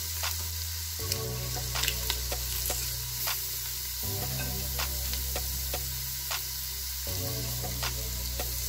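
Chopped onion and garlic sizzling in hot olive oil in a Philips multicooker's pot on the sauté setting, with a steady hiss and many small scattered pops. The onion is almost golden brown.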